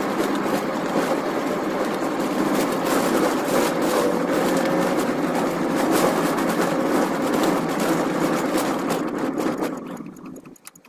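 Car engine running and road noise heard from inside the cabin while driving, with many small clicks and rattles throughout. The sound falls away suddenly near the end.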